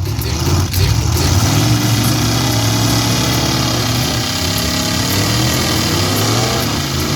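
Demolition derby cars' engines running loud, revving up and down over a constant engine and exhaust din.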